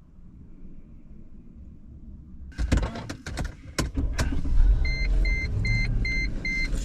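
A car door being opened or shut with several clicks and knocks, followed by the car's door-open warning chime beeping rapidly and evenly, about three beeps a second, over a low rumble.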